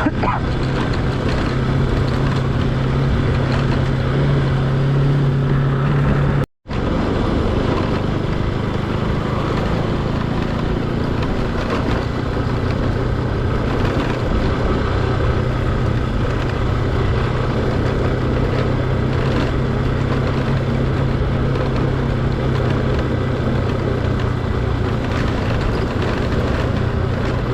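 Motorcycle engine running steadily under way, a constant drone over road and air noise. It cuts out for an instant about six and a half seconds in, then carries on unchanged.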